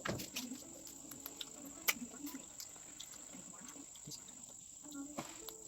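Eating sounds close to the microphone: chewing with scattered sharp clicks, the loudest about two seconds in, over a faint steady high whine.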